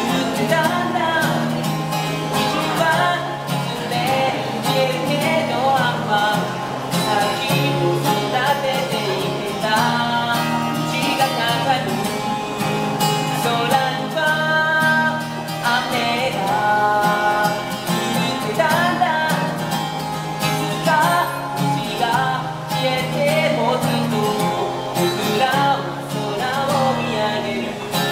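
A singer performing a song live while strumming an acoustic guitar.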